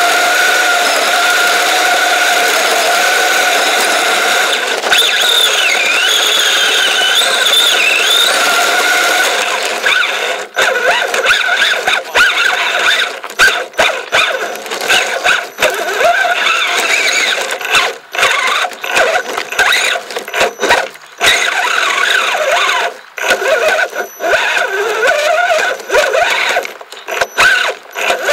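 Kyosho Blizzard RC snowcat's electric motor and drive whining steadily as it drives. From about ten seconds in, the whine comes in short stop-start surges broken by many sharp clicks and knocks.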